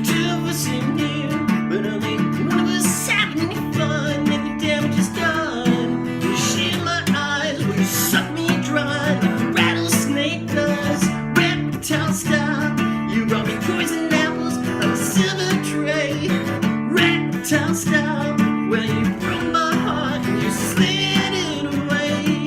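Band playing an instrumental stretch of a rock song: strummed and plucked guitars over drums.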